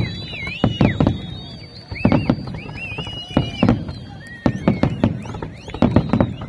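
Fireworks display: a dozen or so sharp bangs from bursting shells in quick clusters, with whistling fireworks whose pitch wavers and glides between the bangs.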